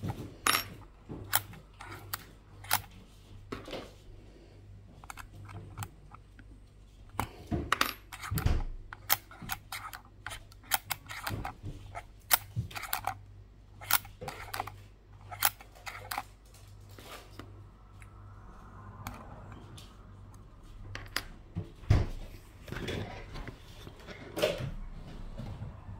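Irregular small clicks and taps of metal parts and screws being handled while the side leg is refitted to a Xiegu X6100 radio, over a low steady hum, with a louder knock near the end.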